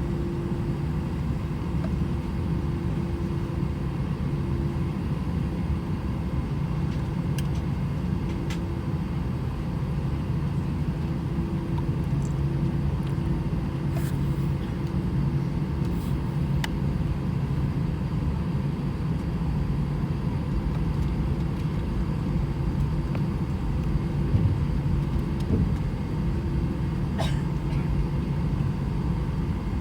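Cabin noise inside an Airbus A319 taxiing: a steady low rumble and hum from the jet engines at low power, with a few light clicks and rattles from the cabin.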